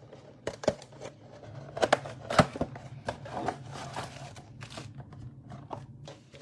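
Cardboard trading-card box being opened by hand: a few sharp clicks and snaps of the flap in the first couple of seconds, then softer scraping and rustling of cardboard.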